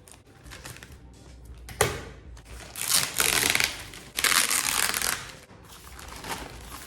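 Parcel packaging being torn open by hand: a sharp click, then two loud ripping tears of about a second each.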